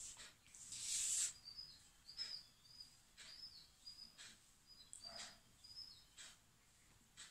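A paper sheet slides and rustles about a second in, then a pastel crayon rubs on paper in short strokes about once a second. A bird chirps a run of short high notes.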